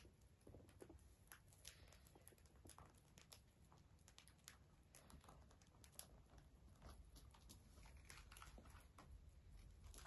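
Several cockatiels pecking and cracking seed from small dishes: faint, irregular clicks and crunches.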